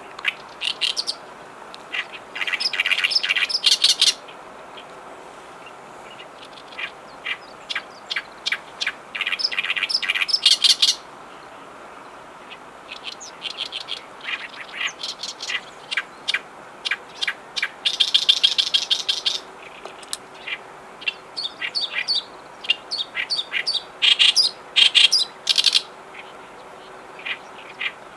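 Oriental reed warbler singing its loud, harsh, chattering song: runs of rapid grating notes repeated in phrases, with short pauses between them.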